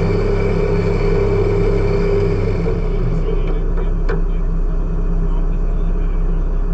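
A vehicle engine running steadily with a constant low hum, with a couple of faint clicks a little past the middle.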